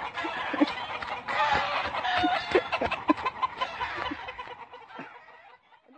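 Chickens clucking in short scattered calls over steady background noise, fading out about five seconds in.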